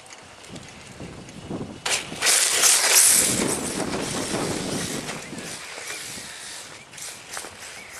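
Electric RC drift car with a brushless motor passing close on rough asphalt: a sudden rush of tyre scrub and motor whine about two seconds in, loudest for a second or so, then fading as it moves away.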